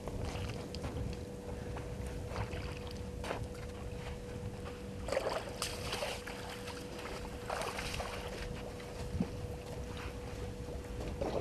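A herd of African elephants walking past: scattered soft scuffs and rustles from their feet, strongest about halfway through, over a low rumble and a steady electrical hum.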